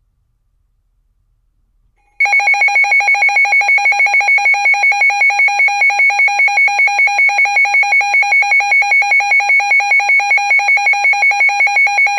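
Weather radio receiver's alert alarm going off for a severe thunderstorm warning: a loud, rapid electronic beeping, about four beeps a second, starting about two seconds in.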